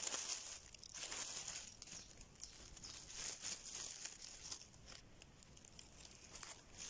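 Dry oak leaves rustling and crinkling in irregular bursts as a hand works through the leaf litter to pick a morel.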